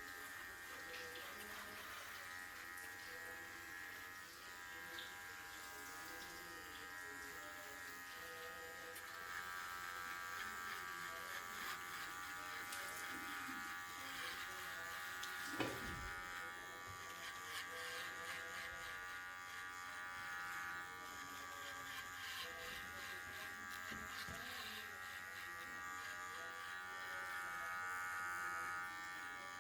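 Electric hair clippers buzzing steadily while cutting hair, with a brief knock about halfway through.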